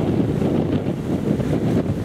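Wind buffeting the microphone: a loud, unsteady low noise that rises and falls with the gusts.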